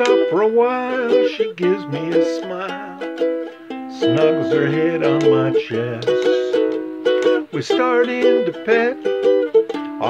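A ukulele strummed in a swing rhythm through an instrumental break, with a wordless vocal melody gliding over the chords.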